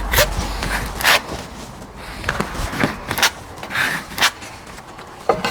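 Flashing tape being rubbed and pressed down by hand onto the wall and window frame, making a series of short, irregular scraping swishes.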